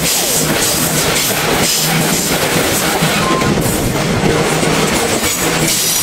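Freight train gondola wagons rolling past at speed: a loud, steady rumble and rush of steel wheels on the rails, with a running clatter of wheel clacks over the rail joints.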